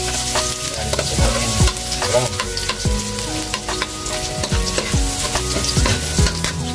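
Minced garlic sizzling in hot oil in a wok while a metal ladle stirs it, with background music with a steady beat.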